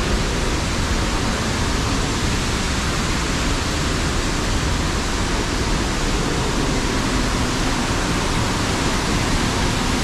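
Tad Yeung waterfall pouring into its pool: a loud, steady, unbroken rush of falling water.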